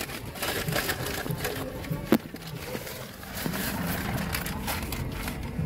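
Brown paper bag crinkling and rustling as it is handled and opened, with a sharp click about two seconds in.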